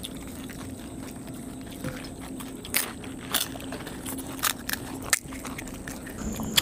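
Crisp fried pani puri shells cracking and crunching in scattered sharp snaps, roughly one a second, as they are poked open and bitten. A steady low hum runs underneath.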